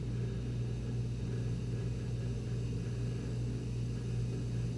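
Steady low hum of the Novecel F07 liquid-nitrogen LCD separator's vacuum pump running.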